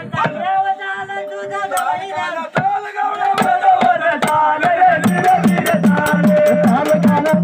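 Gondhal devotional singing: voices chanting a call in a strong folk style. About five seconds in, sambal drums join with a steady, fast beat.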